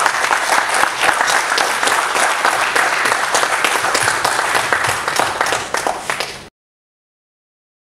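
Audience applauding: dense, steady clapping that cuts off suddenly about six and a half seconds in.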